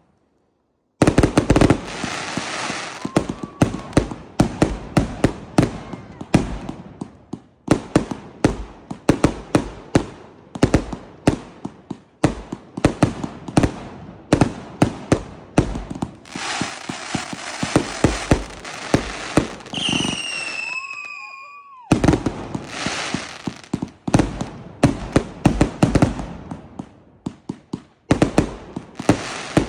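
Consumer aerial fireworks firing in rapid succession from the ground: a steady run of sharp launch thumps and overhead bangs with crackle. A falling whistle sounds about twenty seconds in, and the sound drops out briefly twice.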